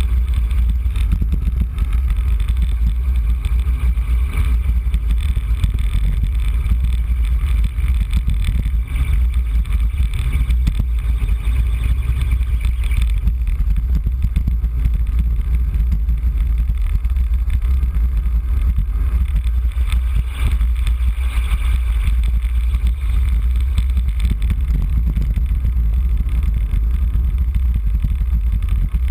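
Wind rumbling steadily over the microphone of a bike-mounted camera on a fast road-bike descent. Underneath is a fainter hiss of tyres on wet asphalt.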